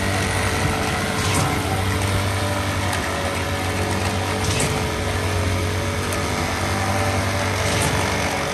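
Small engine of a vibrating power screed running steadily at constant speed as the screed is drawn across wet concrete.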